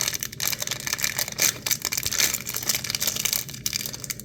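Toy packaging being handled and opened by hand, a continuous run of quick irregular crinkling and tearing crackles.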